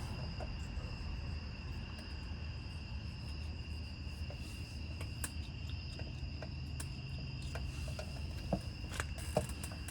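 Crickets trilling steadily in the background, with a low hum beneath and a few faint clicks and taps scattered through.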